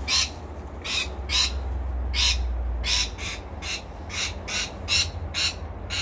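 Parrots squawking: a string of short, harsh calls, roughly two a second.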